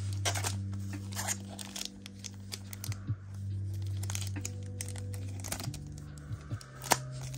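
Foil Pokémon booster pack wrapper being torn open and crinkled by hand: a run of short sharp crackles, the sharpest near the end.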